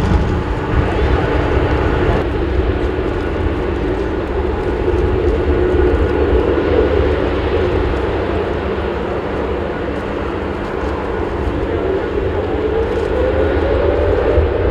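Boeing 787-9 jet engines running at taxi power, a steady low rumble and whine, with a whine rising in pitch over the last few seconds.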